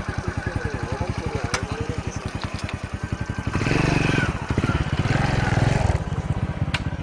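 A motor vehicle engine idling close by with a steady, rapid throb, louder for a couple of seconds around the middle.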